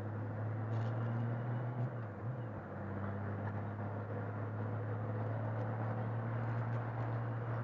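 Motorcycle engine running at road speed with wind rush. The engine note dips and comes back up briefly about two seconds in.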